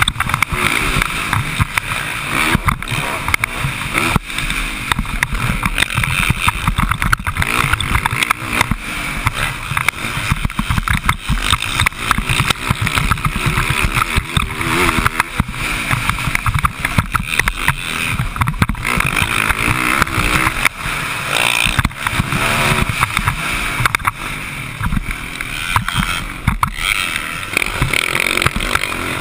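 Motocross dirt bike engine running hard under a rider, its revs rising and falling through the lap, heard through heavy wind buffeting on an onboard microphone.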